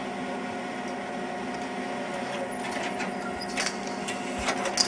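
Steady mechanical whir of a tape camcorder's own mechanism, a constant hum with several fixed tones. Scattered sharp clicks and ticks run through it, the loudest near the end.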